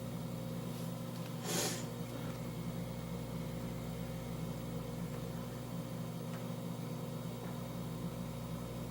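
Steady low mechanical hum, with a brief rustle about a second and a half in.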